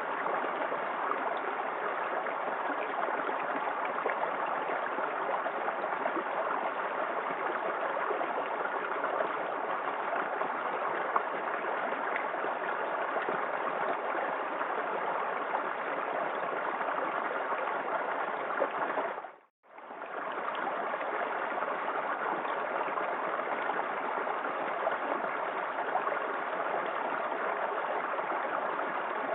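A small waterfall in a forest creek, splashing and rushing steadily. About two-thirds of the way through the sound fades away to nothing and comes straight back within about a second.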